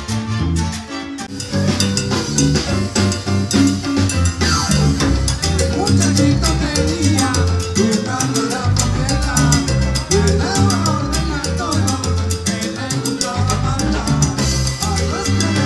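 Live salsa band playing: electric bass line, congas and timbales keeping the beat, with horns and keyboard over it.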